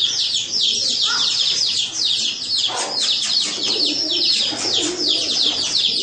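Many small birds chirping continuously, a dense high-pitched chatter of quick, repeated notes.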